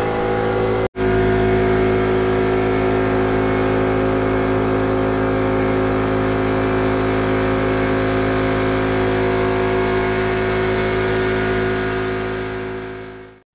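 Air compressor running steadily, with the hiss of a gravity-feed spray gun laying primer onto a plywood cabinet. The sound cuts out for an instant about a second in and fades away near the end.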